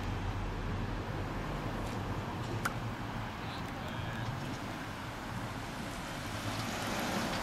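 Steady low rumble of car engines and road traffic, with wind on the microphone and a single faint click about two and a half seconds in.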